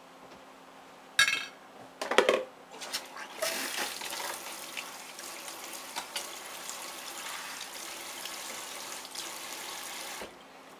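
A couple of sharp knocks, then a sink tap running steadily for about seven seconds and cut off suddenly. The water is for rinsing a splash of raw, caustic soap batter off the face before it burns.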